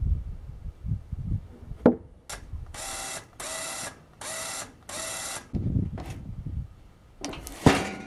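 A large slabbed log being turned over on a sawmill's steel bed: low rumbling and sharp wooden knocks, the loudest near the end. In the middle come four even mechanical rasps about two-thirds of a second apart.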